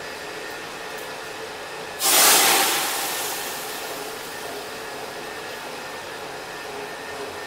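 A thick stream poured into a large aluminium pot of boiling, spiced water: a sudden loud rushing splash starts about two seconds in and fades over a couple of seconds into a steady hiss of pouring and boiling.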